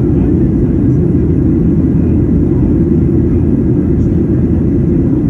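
Steady in-flight cabin noise of a Boeing 737-900, from its CFM56-7B turbofans and the air over the fuselage: a loud, even, low rumble heard from a window seat.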